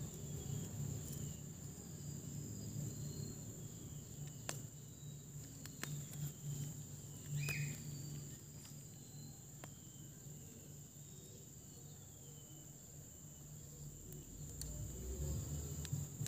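Steady high-pitched drone of insects, with a few scattered soft clicks as a knife cuts into the soil around the base of the stem.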